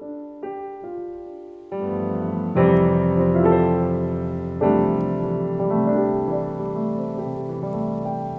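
Background piano music: sustained chords, with new chords entering about half a second in, near two seconds, and again near three and near five seconds.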